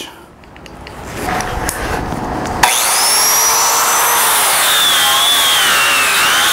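Dewalt DW402 4.5-inch angle grinder switched on about two and a half seconds in, its motor whine climbing to full speed. From about four seconds in its 40-grit zirconia flap disc grinds steel, the whine dropping in pitch and wavering under load. Quieter handling noises come before the start.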